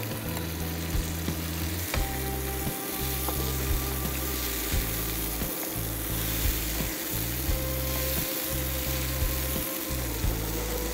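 Chicken tikka pieces in a milky spice paste sizzling in a non-stick frying pan over low heat, stirred with a spatula that scrapes and knocks against the pan now and then.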